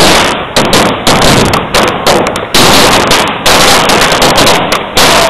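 A loud, irregular series of sharp bangs, about two or three a second, each fading away within a fraction of a second.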